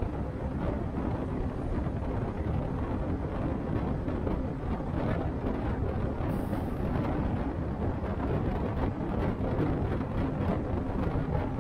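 Steady rumble of a city bus under way, heard inside the cabin: engine and road noise.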